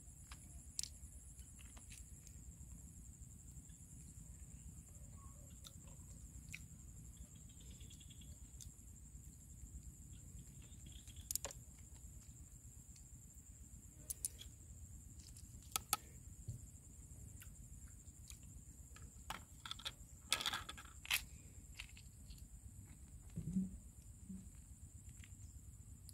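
Scattered sharp clicks of cooked freshwater clam shells knocking together as they are picked from the pile and opened, a few close together about three-quarters of the way through. Under them a steady high insect drone.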